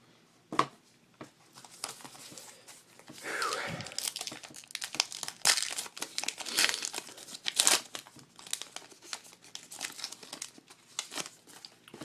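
A trading-card pack's foil wrapper being torn open and crinkled: a run of sharp crackles and rustling, with a longer tearing rasp about three seconds in.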